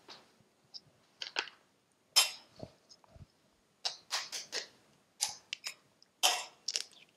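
Raw eggs being tapped on metal and cracked open over a saucepan: a series of short sharp cracks and clicks in several clusters, loudest about two seconds in and again near the end.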